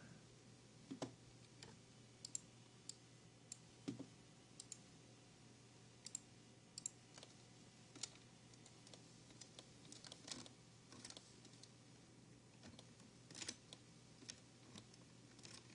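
Faint, irregular clicks of a computer mouse and keyboard, a click every second or so, with a small cluster about ten seconds in, over a faint steady low hum.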